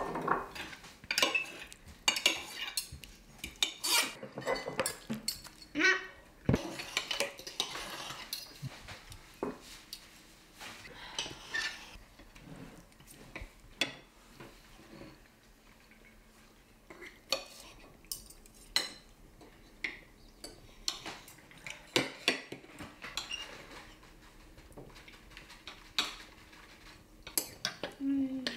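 Dishes and cutlery clinking and clattering in irregular runs of sharp, ringing knocks, with a quieter lull about halfway through.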